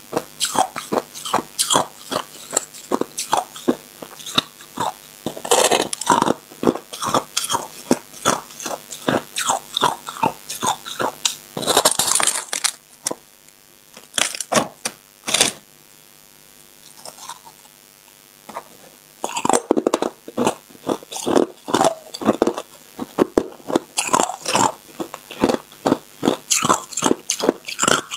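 Close-up crunching and chewing of a block of packed crushed ice, with sharp crunches coming several times a second. About halfway through the crunching drops away for several seconds, broken by two single crunches, then resumes at the same rapid pace.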